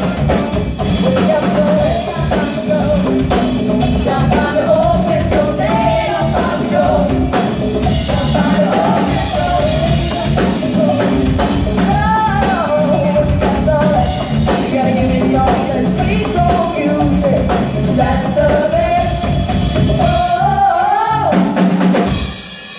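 Live band music: a woman singing lead over drum kit, congas, bass guitar and keyboards. The music stops near the end.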